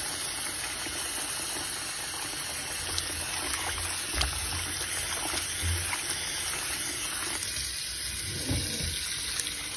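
Kitchen tap running into a bowl of soaked dried aubergine slices, with a hand swishing the pieces through the water to rinse them; a few small splashes sound over the steady flow.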